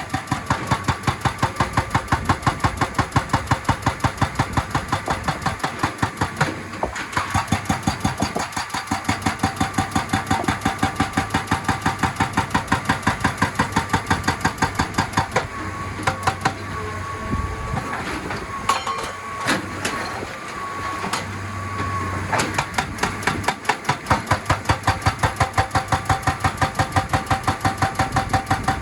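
Excavator-mounted hydraulic breaker hammering rock in a fast, even rhythm of about five blows a second over the running engine. The hammering stops for several seconds past the middle, leaving the engine and a steady high tone, then starts again.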